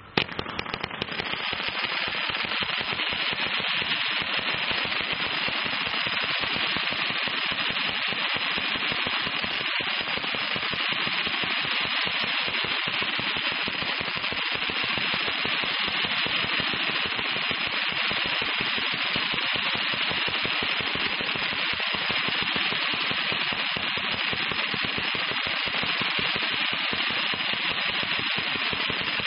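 Bright Star 'Ultraviolet Radiation' firework cake firing rapid, continuous shots: a dense, unbroken rattle of pops that starts about half a second in and holds at a steady level throughout.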